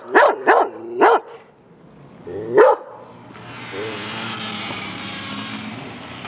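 A dog barks four sharp times in the first three seconds. After that a steady rushing noise of unclear source takes over.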